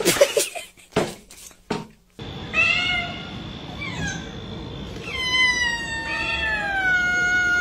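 A few sharp knocks, then a cat meowing: two short meows, then one long, drawn-out meow that slowly falls in pitch.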